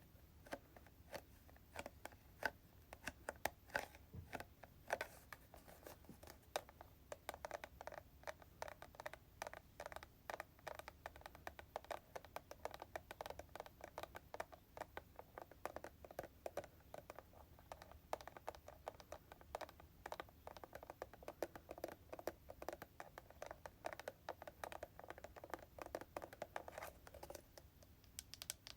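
Soft, uneven tapping on hair-product containers, several taps a second, with occasional light scratching.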